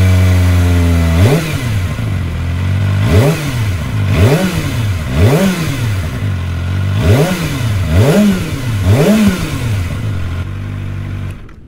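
Kawasaki Ninja ZX-25R SE's 250 cc inline-four engine idling steadily, then revved in about seven quick throttle blips, its pitch rising sharply and falling back each time before settling to idle again. This is the exhaust note of the revving four-cylinder.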